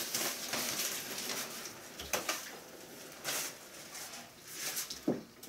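Rustling and swishing of a fabric door-seal sheet being handled and pressed against a glass balcony door, in several short scrapes.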